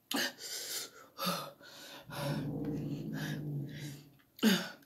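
A person breathing hard after eating very spicy volcano noodles: sharp rushes of breath in and out through the mouth, then a drawn-out low hum of the voice about two seconds in, and a short voiced exhale near the end. The hard breathing is the reaction to the burning heat of the noodles.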